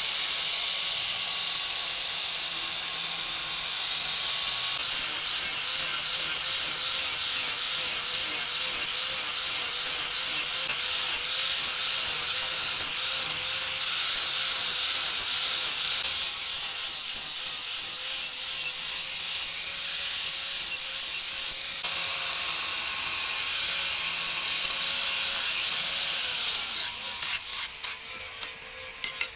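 Handheld angle grinder with a polishing wheel running against a steel knife blade: a steady high whirring hiss over a faint wavering motor whine. Near the end the sound turns uneven and drops.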